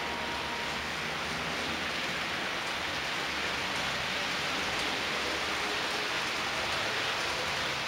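A steady, even hiss with no distinct knocks or clicks, unchanged as the model train passes out of sight.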